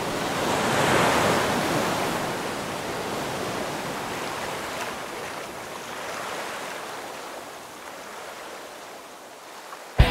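Ocean surf and wind, a rushing noise that swells about a second in and then slowly fades out.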